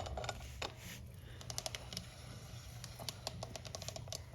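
Faint, light clicking and rattling of a new 525 motorcycle roller chain's metal links as it is handled and laid onto the sprockets, in small irregular clusters.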